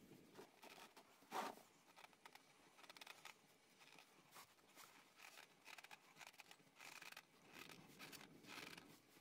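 Near silence broken by faint, scattered rustling and rubbing as a shop rag is wiped around a newly installed spin-on oil filter by a gloved hand, with one louder brief scrape about a second and a half in.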